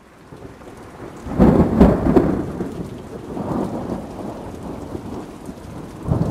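Thunderstorm: steady rain fading in from silence, with thunder rumbling loudest between one and a half and two and a half seconds in, more softly around three and a half seconds, and again near the end.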